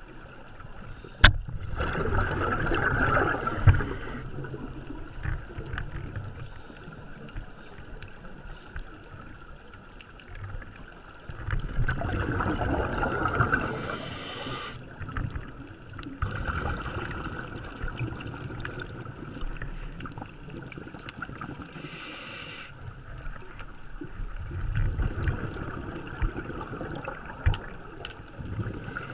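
Scuba diver breathing through a regulator underwater: three rushes of exhaled bubbles spaced about ten seconds apart, each with a short hiss of inhaled air, plus one sharp click about a second in.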